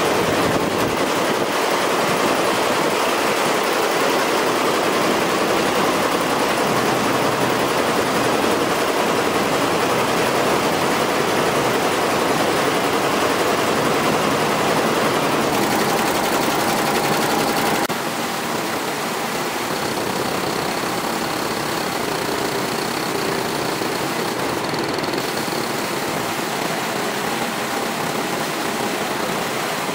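Multi-head computerized embroidery machine (Jintel) running, its needle heads stitching together in a steady, dense mechanical clatter. The sound drops slightly in level about eighteen seconds in.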